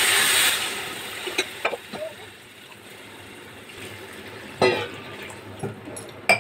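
Water poured from a steel tumbler into a hot kadhai of ghee-fried rice. It splashes and hisses loudly for about the first second, then runs quieter. A loud knock comes a little over halfway through and a sharp metallic clink near the end.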